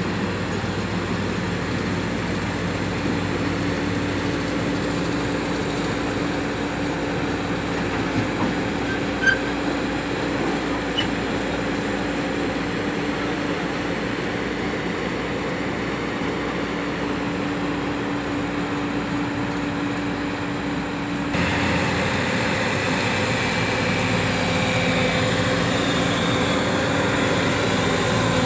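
JCB JS140 tracked excavator's diesel engine running steadily with a constant hum as the machine moves on its tracks. About three-quarters of the way through, the sound turns suddenly louder and brighter.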